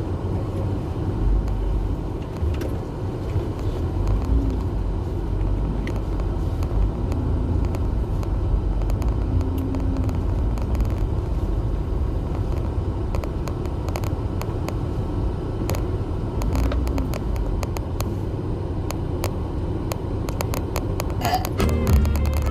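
Steady low rumble of a car in motion, heard from inside the cabin, with scattered light clicks and knocks.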